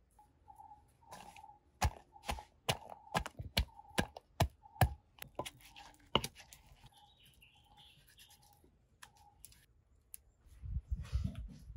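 Wooden pestle pounding garlic and ginger in a wooden mortar: a run of sharp knocks, about two a second, through the middle, then a few dull low thumps near the end.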